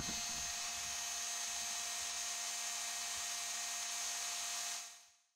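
Electric heat gun running steadily, its fan whirring and blowing, fading out near the end. It is heating a seized diesel injection pump to free the stuck plunger.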